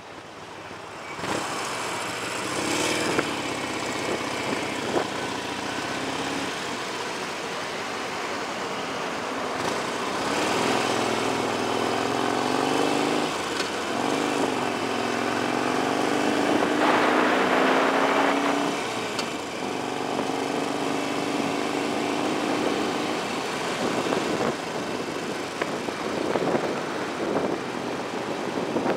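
Motorcycle engine running under a rush of wind noise on the microphone. Around the middle it accelerates, its pitch rising, dropping at a gear change, and rising again.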